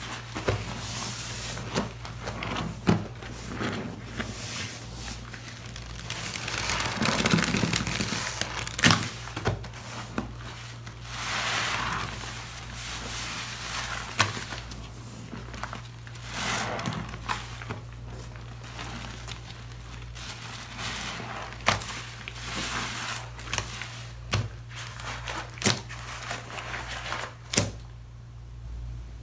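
Sponges squeezed by gloved hands in a thick, soapy purple lather of cleaning products: wet squelching with crackling foam, rising in several louder swells, scattered with sharp clicks and pops.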